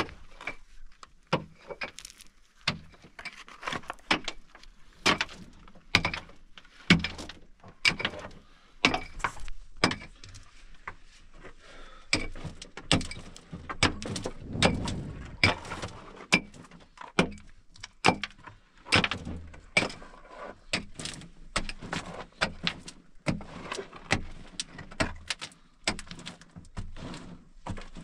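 A pickaxe chopping into hard, dry earth, about one blow a second, with a longer low rumble about halfway through.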